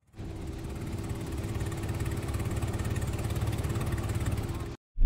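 Yamaha 40 hp outboard motor running steadily, pushing an inflatable boat across the water, with a fast even beat to its note. It fades in, grows a little louder, and cuts off abruptly just before the end.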